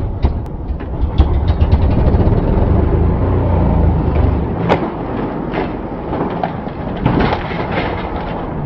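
Trials motorcycle engine revving hard while climbing an obstacle, then sharp knocks about five seconds in and again near seven seconds as the bike and rider come down; the engine keeps running lower after the first knock.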